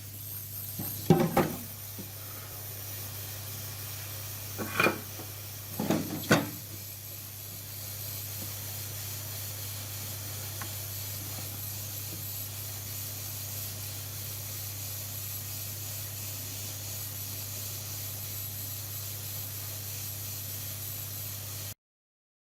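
A steady low hum with a few brief knocks and rubs in the first seven seconds. The sound cuts off suddenly near the end.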